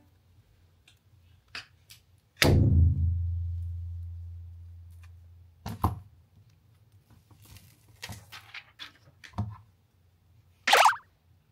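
Light clicks and taps from handling a phone and a clear plastic case. About two and a half seconds in comes one loud thud, leaving a low hum that dies away over about three seconds. A short scraping burst follows near the end.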